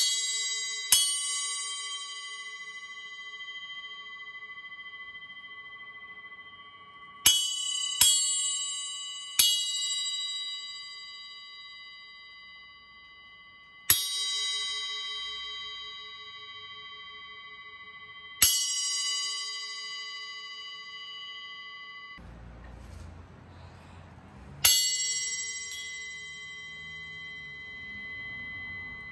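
Arborea Knight 6-inch bell cymbal struck with a wooden drumstick, eight hits in all. Each hit gives a bright, bell-like ping whose several high tones ring on for seconds and slowly fade. About 22 seconds in the ringing cuts off abruptly, followed by a couple of seconds of low rumbling noise before the next hit.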